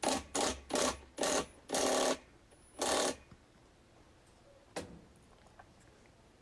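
Torque wrench ratcheting in six quick strokes as a washer's wash plate bolt is torqued down, then a single sharp click about five seconds in.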